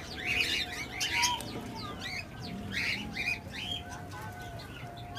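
Aviary birds chirping in short, repeated calls, with a low dove coo about halfway through.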